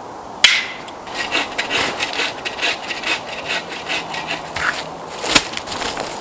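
A hand saw cutting wood: a sharp knock, then quick, even back-and-forth rasping strokes, several a second.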